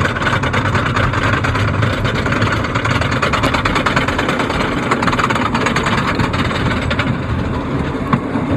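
Wooden roller coaster train climbing its chain lift hill: a loud, steady, rapid clatter of the lift chain and track clicks.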